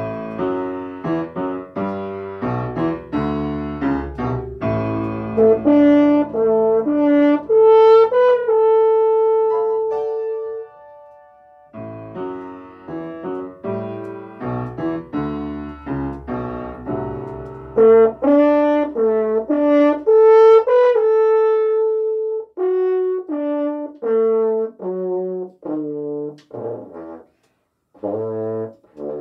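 French horn playing a melody of short and held notes with piano accompaniment. Each phrase ends on a long held note, with a short break about eleven seconds in and another briefly near the end.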